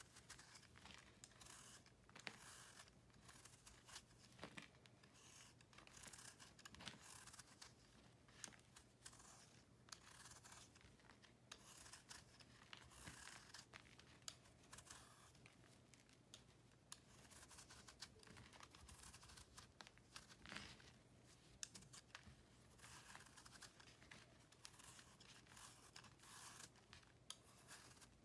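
A blade shaving a dried block of pressed cornstarch, calcium carbonate and chalk: quiet, repeated dry scraping strokes as thin powdery curls peel off and crumble.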